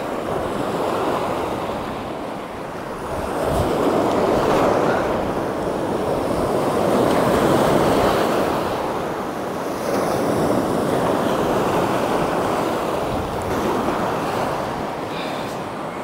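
Waves washing in over a shallow, bouldery shore, the surge swelling and easing every few seconds, with strong wind buffeting the microphone.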